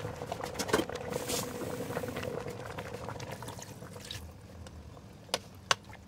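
Water poured into a rice cooker pot, splashing over the food inside for a few seconds. This is followed near the end by two sharp clicks about a third of a second apart.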